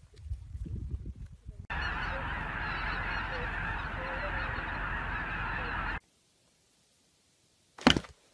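A large flock of geese calling in flight, a dense, steady clamour of many overlapping honks that starts about two seconds in and cuts off suddenly at about six seconds. Before it there is a low rumble, and near the end one short, sharp sound.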